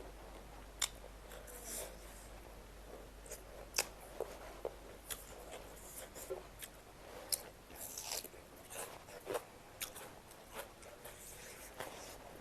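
A person eating close to the microphone: irregular crunchy bites, chewing and small wet mouth clicks.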